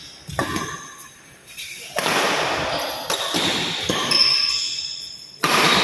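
Badminton rackets striking the shuttlecock in a rally, several sharp hits that ring on in a large echoing hall, with short high squeaks of shoes on the court floor in between.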